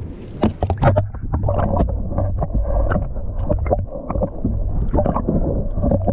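Irregular knocks and clatter of handling on a plastic sit-on kayak, over a low rumble of wind on the microphone.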